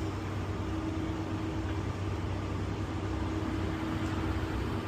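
Steady electrical hum of vending machines, their cooling compressors and fans running with a constant low tone and a constant mid-pitched tone over a haze of background noise.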